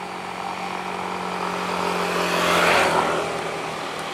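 A motor vehicle passing close by: its engine hum grows louder, is loudest just under three seconds in, and drops in pitch as it goes past.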